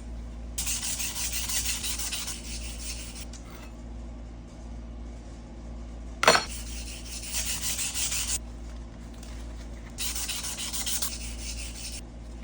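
Sandpaper rubbed back and forth over wood by hand, in three bouts of quick scratchy strokes, each lasting a couple of seconds. A sharp knock about six seconds in is the loudest sound.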